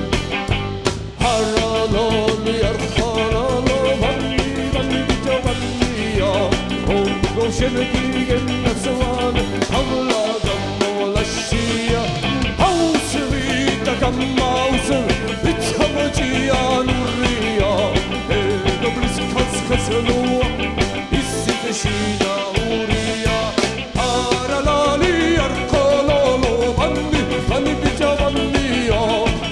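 A live band playing an upbeat rock song led by guitar, with a steady beat and a short break about a second in.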